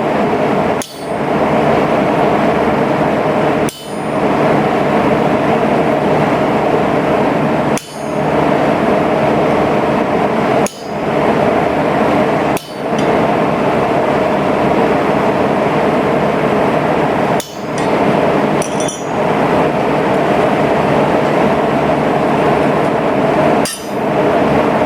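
Dense, rapid hammering on steel during forging, in a string of short stretches that break off abruptly about eight times and start again.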